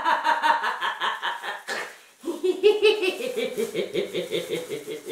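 A woman laughing in two long bouts, with a short break about two seconds in.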